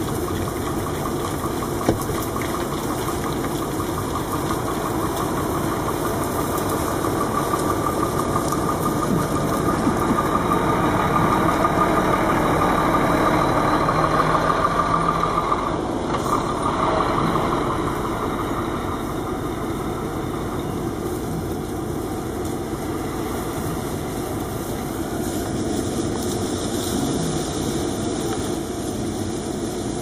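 Motor vehicle engines running steadily, heard from inside a car. The sound swells over several seconds to its loudest as a heavy semi-trailer truck passes close alongside about halfway through, then eases back to a steady engine hum.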